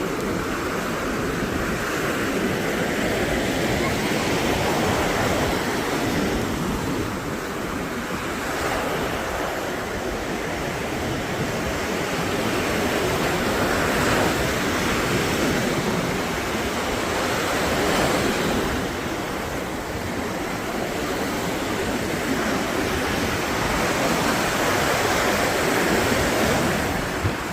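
Surf breaking on a sandy beach: a steady wash of waves that swells and eases every few seconds.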